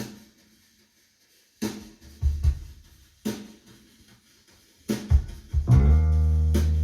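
Music: a slow song intro of a few separate drum-kit hits, bass drum and snare, then about six seconds in a low sustained bass chord that rings on.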